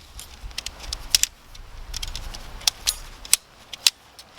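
Tent poles being handled and fitted while pitching a tent: a series of about seven light, sharp metallic clicks and clinks, irregularly spaced.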